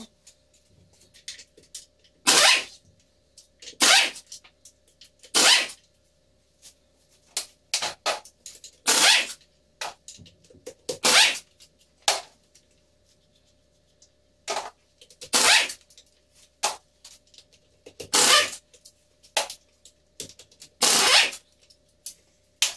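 Air tool on a compressed-air hose fired in short hissing bursts, about eight loud ones a second or more apart with smaller ones between, as it works the bolts on a backhoe-loader gearbox casing during teardown.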